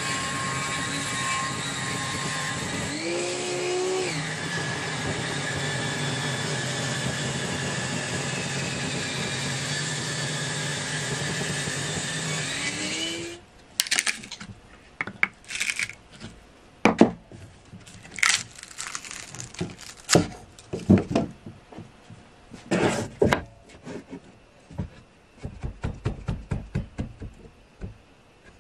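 Table-mounted circular saw running and ripping along a small log, a steady loud cutting noise whose pitch dips and recovers a few times as the blade takes the load, cut off suddenly about thirteen seconds in. Then scattered sharp knocks, scrapes and cracks of wood as a steel tool in the saw kerf pries the sawn slab loose from the log.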